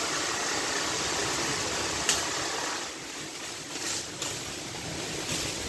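Steady hiss of hurricane wind and rain in the leaves of a mango tree, with a sharp click about two seconds in and a couple of brief rustles around four seconds in.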